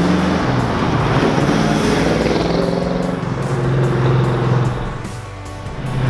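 1971 Chevrolet Camaro Z28's 400 cubic inch V8 driving past, swelling and fading, heard under background music.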